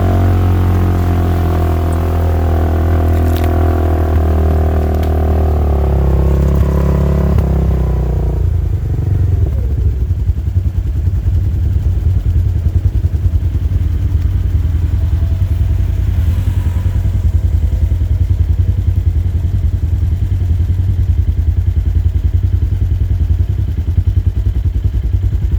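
Side-by-side UTV engine running hard at a steady pitch, then dropping to a lumpy, pulsing idle about eight seconds in.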